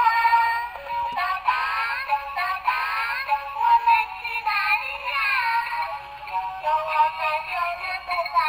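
A high-pitched synthetic voice singing a children's tune over an electronic backing. It sounds thin, with no bass.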